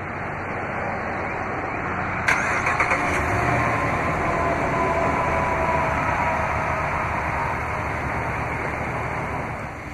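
A 2014 Ram 1500's 5.7-litre Hemi V8, remote-started, cranks and catches about two seconds in, then runs at idle, a little louder at first and easing down near the end.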